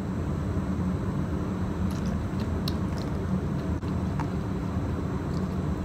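Steady low mechanical hum, with a few faint light clicks as a paint tin and plastic mixing cup are handled.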